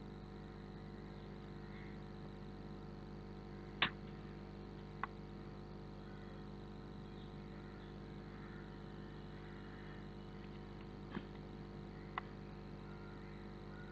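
Four sharp single clicks of a computer keyboard and mouse, the first about four seconds in the loudest, over a steady low hum.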